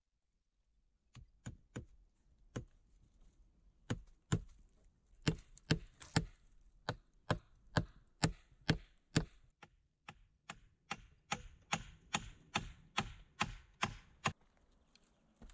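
Hatchet chopping a wooden log: a long run of sharp blows, sparse at first, then about two to three a second, stopping shortly before the end.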